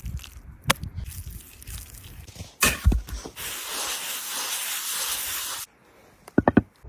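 A couple of sharp knocks, then a steady hiss lasting about two seconds that stops suddenly, followed by a quick run of clicks near the end.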